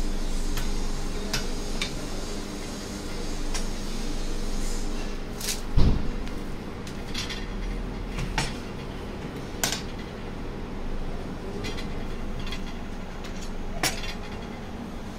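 UHF 300 stainless-steel hand capsule filling machine: its metal plates and trays clink and clank as they are swung, lifted and set down. There are about ten sharp knocks, the loudest about six seconds in, over a steady low hum.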